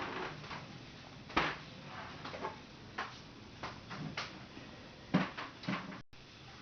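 A series of irregular light knocks and clicks, about ten of them, the sharpest about a second and a half in and again about five seconds in: handling noise from small objects being moved and set down.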